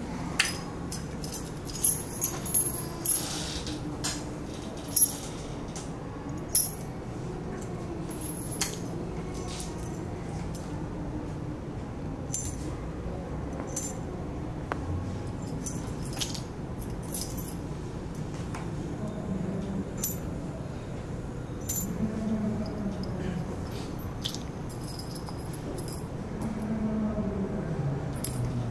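Small metal bolts, nuts and washers clinking while being handled and assembled: sharp metallic clicks that ring briefly, one every second or two, over a faint low background hum.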